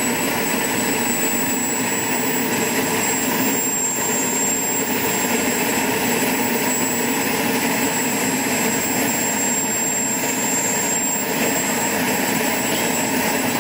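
KingTech K80E model jet turbine running steadily: a continuous rushing noise with a thin, steady high whine on top.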